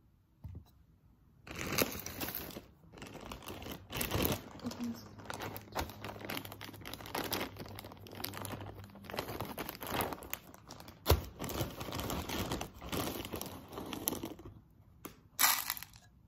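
Clear plastic bag of dry dog kibble crinkling and rustling as it is handled and opened over a food bowl, starting about a second and a half in, with a sharp click partway through.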